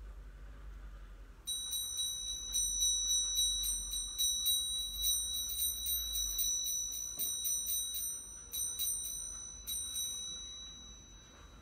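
Small altar bell rung over and over in quick strokes, about three a second, starting about a second and a half in and ringing out near the end: the consecration bell marking the elevation of the host.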